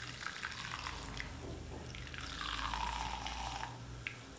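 Coconut milk trickling and dripping through a muslin cloth and steel mesh strainer into a glass bowl as the cloth of blended coconut is squeezed by hand. The trickle is heavier from about halfway in until just before the end.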